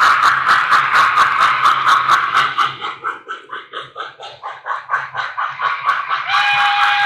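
Model steam locomotive's sound decoder chuffing in a steady quick rhythm, several chuffs a second, then sounding a chime whistle of several tones together from about six seconds in.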